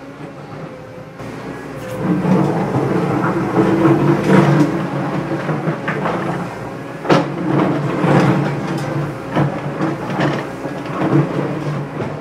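Toy remote-control excavator whirring steadily as its electric motors and gears drive the tracks and arm, getting louder about two seconds in. Sharp clicks and scrapes come as the bucket digs into the sand, the loudest about seven seconds in.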